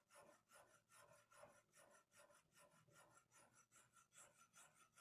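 Faint, rhythmic scraping of a 500-grit sharpening stone stroked along a Vanadis 4 Extra steel knife blade in a guided sharpening rig, about three strokes a second. This is the edge-forming (reprofiling) stage, grinding in the bevel rather than finishing the edge.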